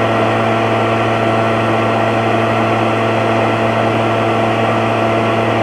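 Echo PB-770T two-stroke backpack leaf blower running steadily, a constant engine drone with the rush of air from the blower tube.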